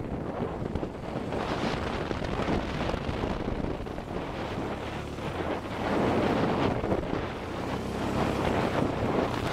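Wind buffeting a camera microphone over a Honda Transalp's V-twin engine running under way. The noise grows louder about six seconds in.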